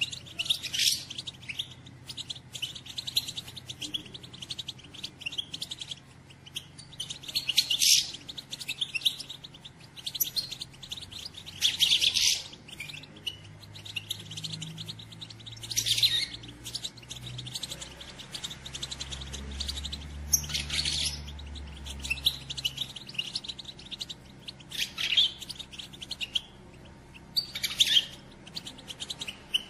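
Female European goldfinches twittering: a steady run of high chirps and trills, with louder bursts of calls every few seconds. This is the female chatter that breeders play to stimulate males to sing.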